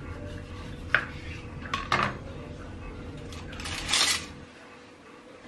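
Kitchen knife cutting a kiwi in half on a wooden cutting board: a few sharp knocks of the blade on the board, then a short clatter about four seconds in as the knife is laid down on the board.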